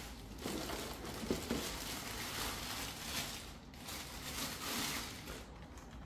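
Quiet rustling and handling noises of packaging and plastic parts being moved about, with a few light knocks around the first second and a half.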